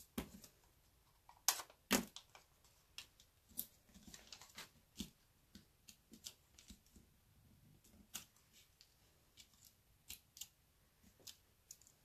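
Paper crafting at a table: faint, irregular clicks and light taps as cardstock pieces and adhesive are handled and pressed into place, the sharpest taps about one and a half to two seconds in.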